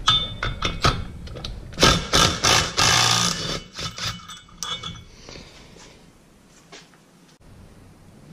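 A tool working the 15 mm bolt off a Polaris RZR Turbo's secondary clutch: a run of metallic clicks and clatter, densest about two to three and a half seconds in, dying down after about five seconds.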